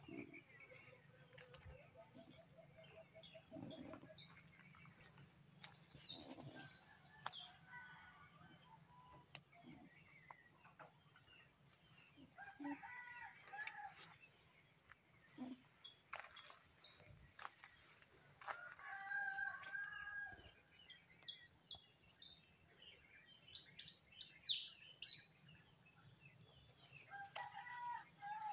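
A rooster crowing a few times, each crow lasting about a second, over a steady high-pitched drone.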